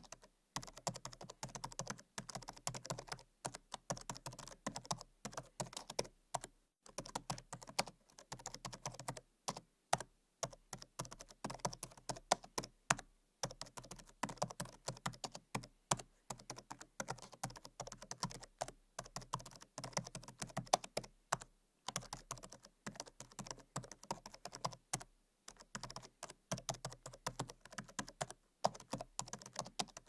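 Fast typing on a laptop keyboard: quick, crisp key clicks in rapid runs, broken by brief pauses every few seconds.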